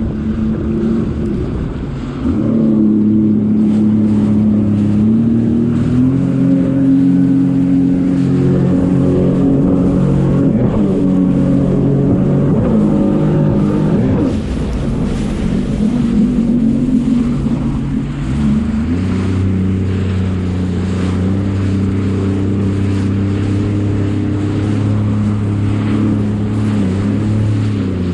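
Jet ski engine running, rising in pitch and loudness about two seconds in as the throttle opens, shifting pitch a few times, and dropping to a lower, steadier note about two-thirds of the way through.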